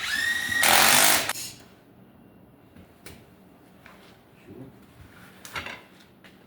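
A power tool runs in a short burst of about a second and a half, its whine rising and then turning rougher before it stops. A few sharp metallic clinks follow.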